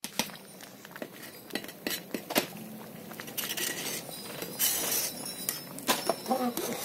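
A metal slotted ladle clinking and scraping against an aluminium pot as the payasam inside is stirred: a series of sharp, irregular clinks with some swishing between them.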